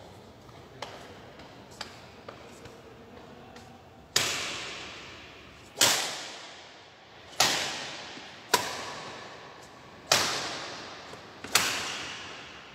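Badminton rally: six sharp racket-on-shuttlecock hits about a second and a half apart, each ringing on in a reverberant hall, after a few faint taps in the first seconds.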